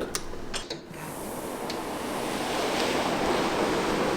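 Strong wind during a snowstorm: a rushing noise that builds steadily after a few light clicks near the start.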